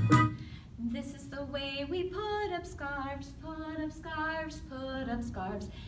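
A woman singing a simple tune, one syllable per note, on held steady pitches that step up and down.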